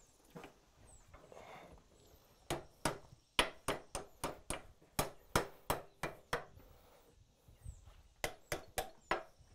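Hand hammer striking a red-hot steel bar clamped in a leg vise, bending it over. A quick run of about a dozen blows, a short pause, then about six more near the end.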